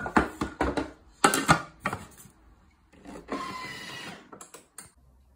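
A Thermomix being set and started: a run of clicks and knocks as its speed selector is turned, then a short mechanical whir about three seconds in as it starts running at speed 1.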